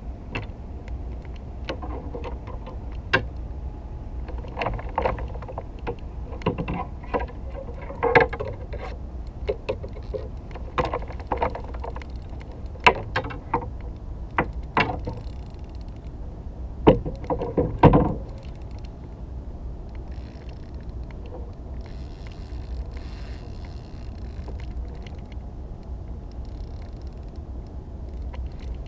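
Irregular knocks and clicks on a plastic fishing kayak and its tackle while a hooked cobia is fought alongside, the loudest double knock about two-thirds in, over a steady low rumble. The knocks stop after that and only the rumble goes on.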